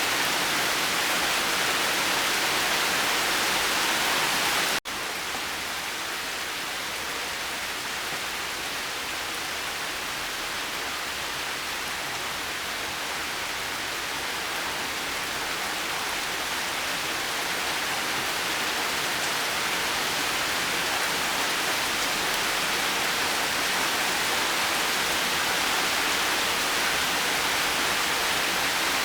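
Steady, dense rain hiss with no thunder. About five seconds in, it drops out for an instant and comes back a little softer and duller, then slowly grows louder again.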